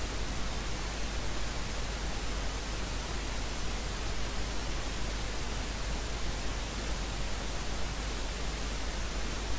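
Steady hiss with a low hum underneath: the recording's background noise, with no other sound on top.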